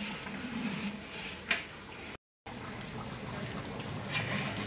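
Large aluminium degh of mutton korma bubbling as it simmers, with a few short pops. The sound cuts out for a moment about two seconds in.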